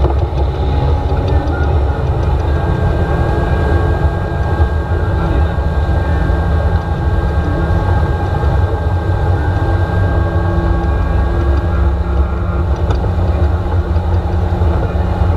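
Motorboat running at speed while towing: a steady rush of wind on the microphone mixed with the engine and the churning wake.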